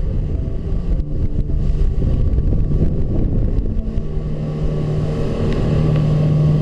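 Motorboat running at speed through the sea: a steady engine rumble with wind buffeting the microphone, and held background-music tones underneath.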